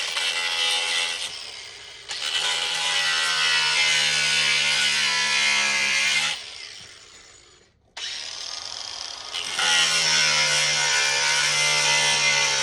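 Angle grinder cutting a 4.5 mm plexiglass sheet: a steady motor hum under a harsh grinding noise. About six seconds in it is switched off and winds down to near silence, then starts again abruptly near eight seconds and grows louder about a second and a half later as the disc goes back into the cut.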